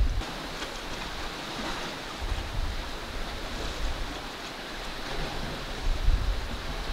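Wind outdoors: a steady rushing, with gusts rumbling on the microphone about two seconds in and again near six seconds.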